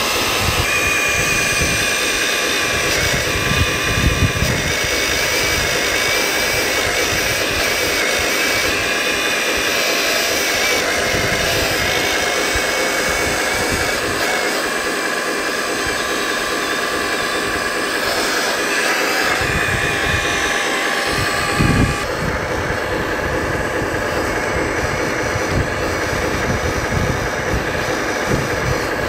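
Electric-driven hydraulic pump of a 1/12-scale Earth Digger 4200XL RC excavator, whining steadily as the machine digs. The whine's upper tones thin out about two-thirds of the way through.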